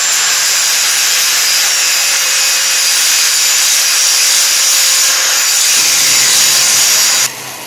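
Grinder running steadily against a freshly welded steel bracket, smoothing down the weld, with a constant high whine over the grinding noise. It cuts off near the end.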